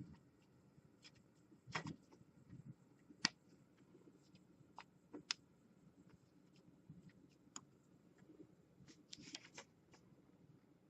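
Faint, scattered clicks and scrapes of hands working tight wire connectors off the terminals of a 3D printer's power switch, with a sharper click about three seconds in and a short cluster of handling noises near the end.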